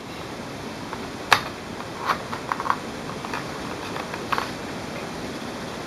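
Cable plugs being pulled from and pushed into a soundbar's back-panel sockets: a few short, sharp plastic clicks and knocks, the sharpest a little over a second in and a small cluster a second later, over a steady background hiss.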